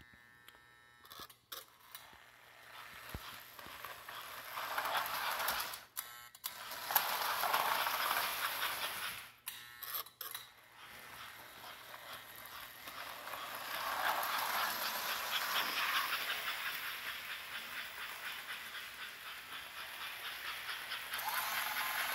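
American Flyer 346 0-8-0 model steam locomotive running along S gauge track, a hissing mechanical run with fine rapid clicking that swells and fades as it passes, with a few brief breaks. Near the end a steady pitched tone starts as the Lionel bascule bridge begins to operate.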